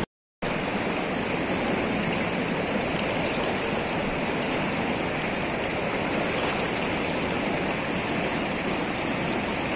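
River water rushing over a weir's sloped concrete apron: a steady, even rush, after a brief silent gap right at the start.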